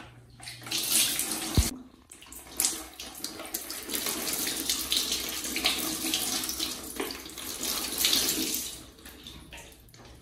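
Water poured from a plastic dipper over a baby monkey, splashing onto the tiles and into a plastic basin in a few long pours that die away about nine seconds in. A single sharp knock about a second and a half in.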